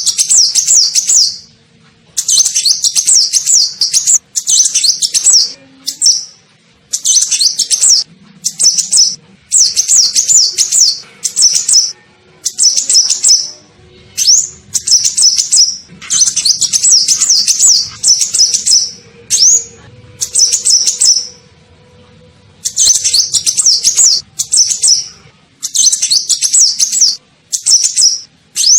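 Sunbird (kolibri ninja) song, played as a bird-lure recording. It comes as repeated bursts of rapid, very high twittering chirps, each phrase about one to two seconds long, with short pauses between them.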